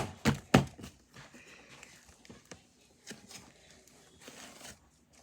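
Sticky slime being lifted and pulled apart, popping and clicking. A few loud pops come in the first second, then fainter scattered clicks.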